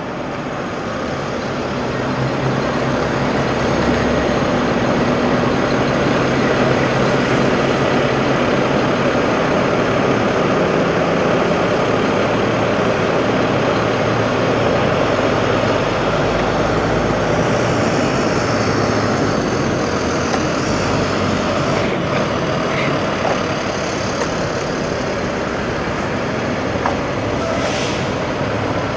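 Semi-truck diesel engine idling, a steady low rumble under a hiss, growing louder over the first few seconds.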